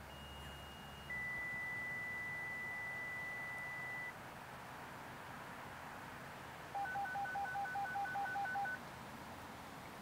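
Signalling tones through a small speaker: a brief faint high tone, then a steady high beep held about three seconds, and after a pause a rapid string of about ten identical dual-tone (DTMF) beeps, about five a second, of the kind used to trigger a siren by radio.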